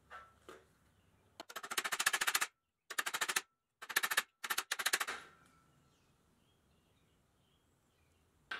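Hammer rapidly tapping a small sheet-steel part against a bench-vise jaw to bend it, in four quick runs of about a dozen sharp metallic taps a second, with a couple of single light knocks before them.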